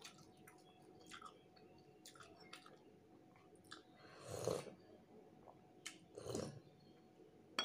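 Close-up eating sounds: faint chewing and small mouth clicks, then two noisy sips of thin sour dal (tok daal) from a glass bowl, the first about four seconds in and a shorter one around six and a half seconds.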